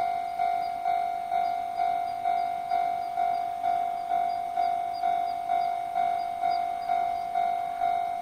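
Japanese railway level crossing warning bell ringing, a steady clang about twice a second, each strike fading before the next: the crossing is closed for an approaching train.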